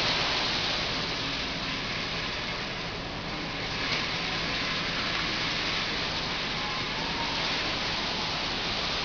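Oscillating humidifier running, giving a steady airy rushing noise with no distinct tones.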